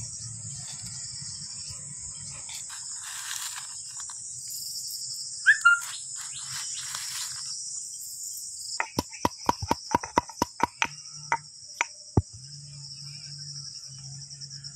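Crickets chirping steadily in a continuous high drone. A short high chirp comes about five and a half seconds in, and a quick run of about a dozen sharp taps or knocks follows from about nine seconds in.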